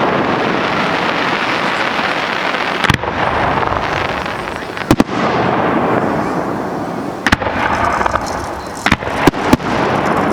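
Professional fireworks display: sharp reports from bursting pyrotechnics every couple of seconds, with a quick cluster of three near the end, over a continuous dense rushing noise.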